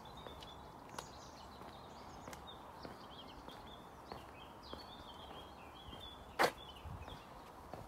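Footsteps on a tarmac footpath, with small birds singing and chirping in the background. Once, late on, there is a single sharp knock, the loudest sound.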